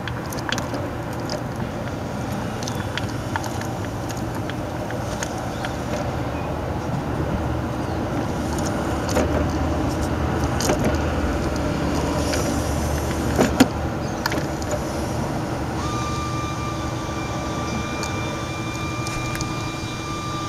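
Jeep Wrangler TJ running with a steady low rumble and many scattered clicks and knocks, the sharpest about thirteen seconds in. A steady whine joins a few seconds before the end. The ARB Air Locker in its Dana 35 rear axle has broken spider gears.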